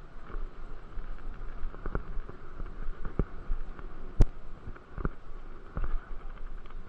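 Bicycle tyres rolling fast over an asphalt pump track, a steady rolling noise with low rumble, broken by sharp knocks and rattles from the bike over the rollers about once a second, the loudest about four seconds in.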